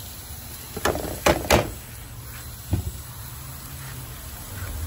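A few sharp knocks of utensils against the rim of a frying pan as ground spices are tipped into fried onions: three close together about a second in, then one more near the middle. A low steady hum runs underneath.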